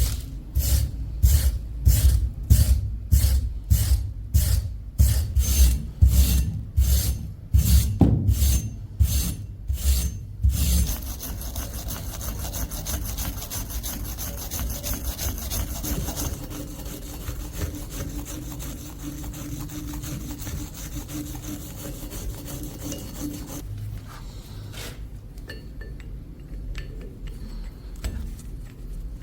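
Hand abrading of rusty metal on an old hammer: rhythmic back-and-forth scraping strokes, about two a second, for the first ten seconds or so. After that it turns into a quieter, steadier rubbing that drops lower still near the end.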